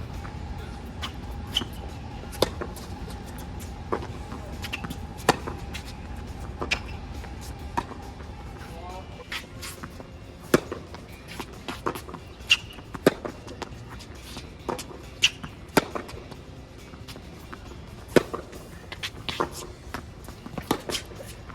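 Tennis rally: tennis balls struck by racquets and bouncing on the court, about one to one and a half seconds apart, with shoes squeaking on the court surface between shots.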